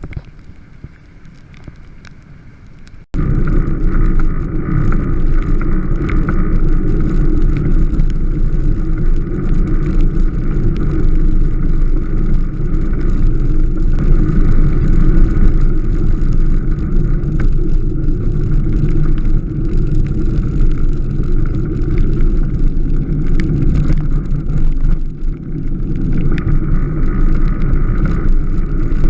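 Strada Carbon velomobile under way: a loud, steady rumble of rolling and riding noise that starts abruptly a few seconds in, after a quieter stretch.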